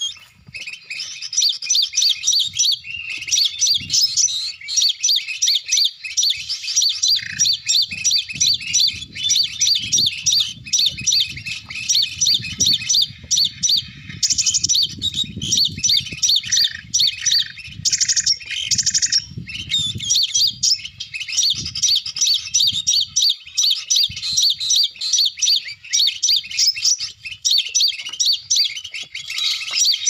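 Recorded call of the sogon (little spiderhunter, 'sogok ontong') played from an MP3 speaker as a lure: a fast, unbroken run of high chirps repeated at an even rhythm. A low rumble of handling noise runs under it from about 7 to 21 seconds in.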